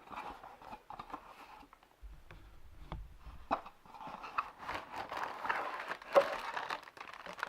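Cardboard Lego box being opened by hand: scattered clicks and scrapes, then a stretch of rustling with one sharp knock about six seconds in.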